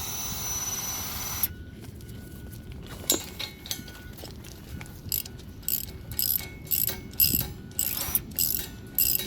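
Hand ratchet wrench being worked back and forth, its pawl clicking in regular strokes of about one and a half a second. A steady hiss with a high whine cuts off about a second and a half in.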